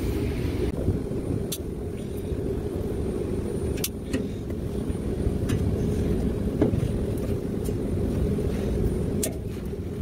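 Side cutters snipping the excess tails off plastic zip ties: a handful of short, sharp snips a second or two apart, over a steady low rumble.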